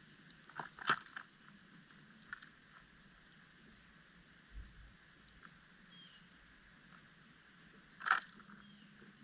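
Birds at a feeder: a few sharp taps, two close together about a second in and a louder one near the end, with faint high chirps in between.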